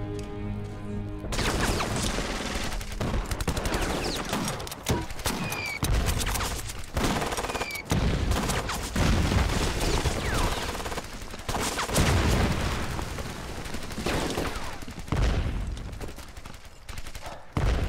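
Film battle sound: soundtrack music, then about a second in a burst of dense rifle and machine-gun fire. The firing goes on with several heavy explosion booms and a few short falling whistles.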